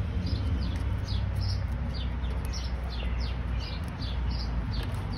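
A bird chirping over and over, short falling chirps about two or three a second, over a steady low rumble.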